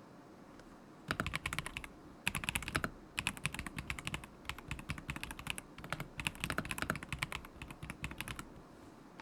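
Typing on a KZZI K75 Pro mechanical keyboard with Moment linear switches: quick runs of key clacks with short pauses between them, starting about a second in and stopping shortly before the end.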